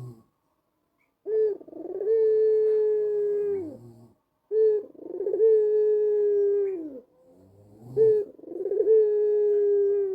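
White Barbary dove (puter putih kalung hitam) cooing three times. Each call is a short opening note followed by one long held coo that drops in pitch as it ends.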